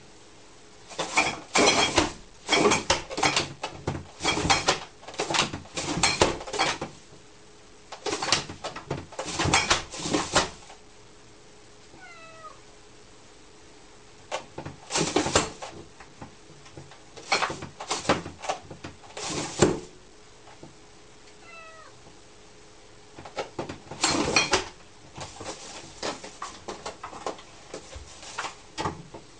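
Cat flap rattling and knocking against the door in bursts of sharp clatters as an overweight cat wriggles its body through it. Two faint short meows come in the quieter gaps.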